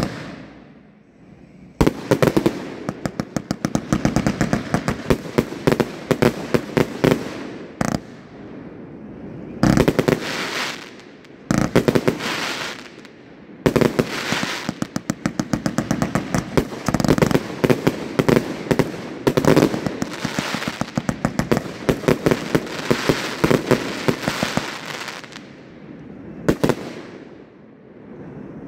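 A 227-shot 500-gram fireworks cake firing: rapid volleys of shots and bursts, several a second, broken by short pauses between sequences.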